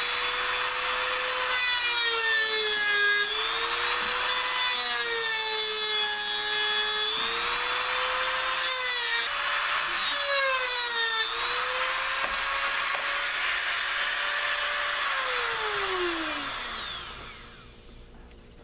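Dremel rotary tool with a cut-off wheel cutting through a turkey wing bone. The high motor whine dips in pitch again and again as the disc bites into the bone, recovering between cuts, then spins down with a falling pitch near the end.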